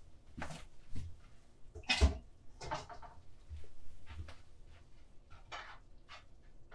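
Kitchen clatter: a string of short knocks and scrapes of cookware, the loudest about two seconds in, as a pot is filled with layers of pasta and meat sauce.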